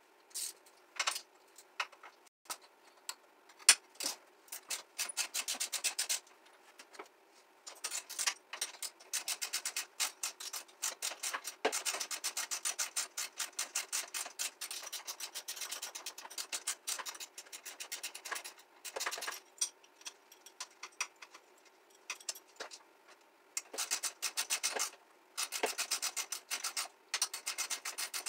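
Hand ratchet wrench clicking rapidly in repeated bursts of several seconds, backing out bolts on a moped being dismantled.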